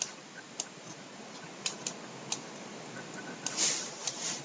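Scattered sharp single clicks of a computer mouse, about six of them, over a faint steady hiss, with a soft short swell of noise a little past halfway.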